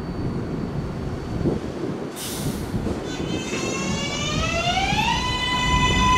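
R188 subway train's electric traction motors whining as it pulls out and accelerates: the whine rises in pitch and levels off about five seconds in, over the low rumble of the wheels on the elevated track. A short burst of air hiss about two seconds in.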